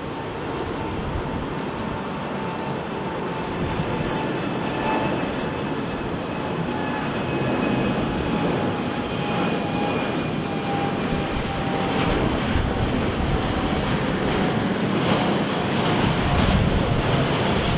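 Boeing 787-8 Dreamliner's jet engines at takeoff thrust: a steady, heavy rush of jet noise that grows louder as the airliner approaches, with a faint whine that drifts slowly lower in pitch.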